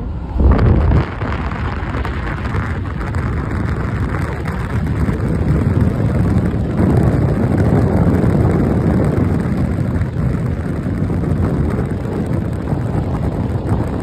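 Wind buffeting a phone's microphone held out of the window of a moving car, with road and engine noise underneath; a louder rush of wind about half a second in.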